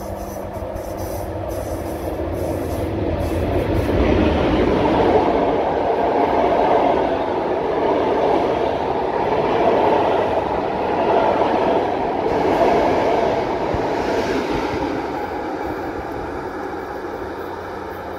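PKP Intercity passenger train, hauled by an EP07 electric locomotive, running through the station without stopping. Its wheels and coaches rumble loudly on the track, building as it arrives, loudest as the coaches pass, then fading as it goes away.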